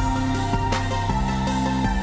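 Background music with a steady beat and sustained electronic notes.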